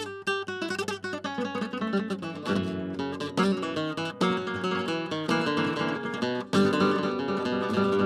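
Background music: acoustic guitar in a flamenco style, quick plucked runs at first, then fuller strummed chords.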